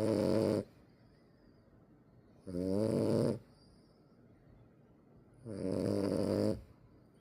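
French bulldog puppy snoring in deep snores like a grown man's. There are three snores about three seconds apart, each about a second long; the first is already under way at the start.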